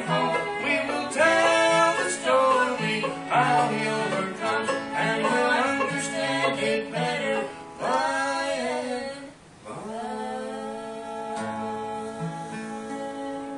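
String band of banjo, acoustic guitar and two fiddles playing an old-time gospel tune. About nine seconds in they close on one long held final chord that rings on and slowly fades.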